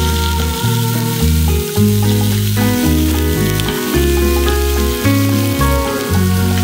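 Background music with a bass line that changes note about every half second, over the sizzle of fish steaks frying in hot oil in a pan.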